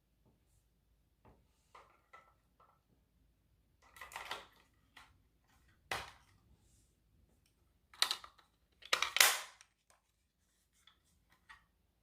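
Handling noises from a plastic carbon monoxide alarm during a battery change: a few small clicks and several rustling scrapes, the loudest about nine seconds in.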